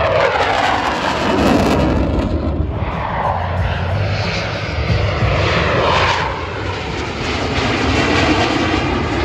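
F-16 Fighting Falcon fighter jets flying past with a loud, steady jet roar. Tones in the roar sweep down in pitch as the jets pass.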